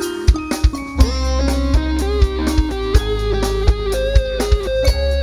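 Live tarling band music: an electric guitar plays a stepping melody over a drum kit beating about twice a second, with a heavy bass coming in about a second in.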